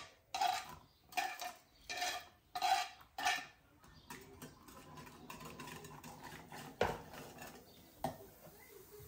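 A wire whisk scrapes diced cucumber off a wooden cutting board into a glass bowl in five quick strokes. It then stirs the cucumber into the liquid yogurt mixture, with two sharp knocks of the whisk against the glass near the end.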